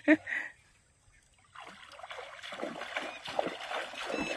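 Water sloshing and splashing around a man's legs as he wades through a shallow river, starting about a second and a half in and running on as a continuous wash.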